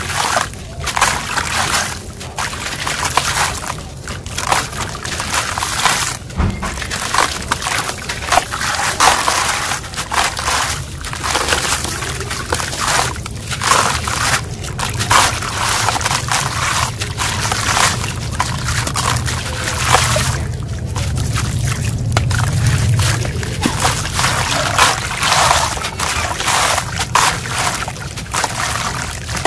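Gritty concrete chunks crumbled by hand, the loose grit and sand trickling and pouring into a tub of water, in repeated bursts with short pauses between handfuls.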